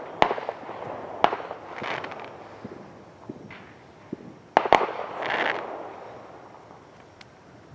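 Fireworks going off: several sharp bangs, two of them close together about four and a half seconds in, each followed by a crackling fizz that dies away near the end.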